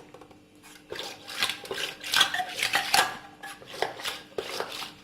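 Eggs being beaten with a whisk in a bowl: quick, irregular clinks of the whisk against the bowl, a few strokes a second, starting about a second in.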